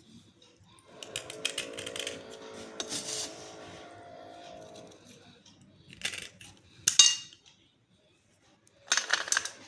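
Slate pencils clinking and rattling together as they are handled, with sharp clicks about six, seven and nine seconds in, the one at seven the loudest. A steady pitched sound runs through the first half.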